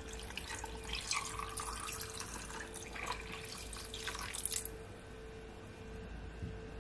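Lemonade pouring in a steady stream from a jug into a glass of ice, splashing as the glass fills; the pour stops about four and a half seconds in, leaving a few drips.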